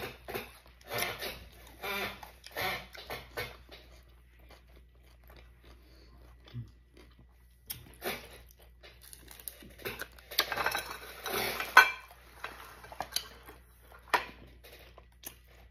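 Close-up chewing and crunching of tacos in irregular spells, with a quieter pause in the middle, mixed with light clinks and rustles of dishes and cutlery.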